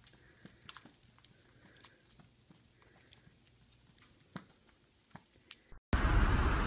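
Faint, irregular light clicks and taps as a small dog in booties steps across carpet. About six seconds in, a sudden switch to loud, steady outdoor street noise.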